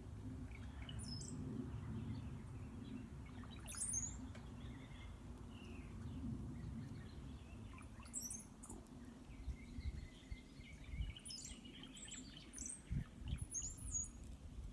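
Birds chirping: scattered short, high calls and a few sliding whistles over a steady low rumble, with a few low thumps near the end.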